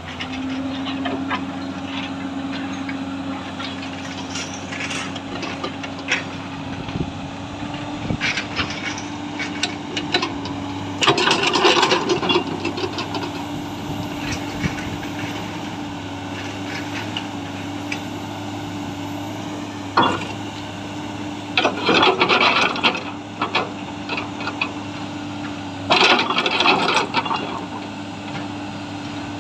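Komatsu PC210 excavator's diesel engine running at a steady speed while the boom and arm are worked, with three louder noisy surges a second or two long, one near the middle and two near the end, as the hydraulics come under load. The machine is being run to check its slow boom and arm movement.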